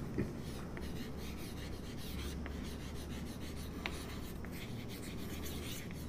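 Chalk writing on a blackboard: faint scratching strokes with a few light ticks as a word is written out, over a low steady hum.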